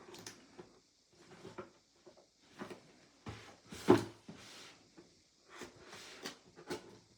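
Cardboard packaging being opened and handled: a run of short scrapes and rustles, with one sharp knock about four seconds in.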